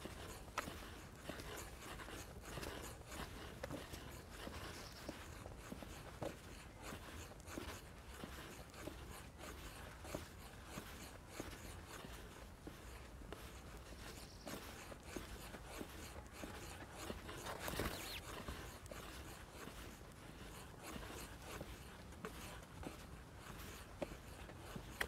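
Footsteps scuffing along a path, irregular light clicks and scrapes over faint outdoor background, with one short louder rush past the middle.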